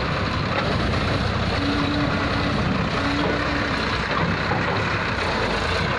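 Diesel tractor engines running steadily. Two short, higher steady tones come through, a little after one and a half seconds and again around three seconds.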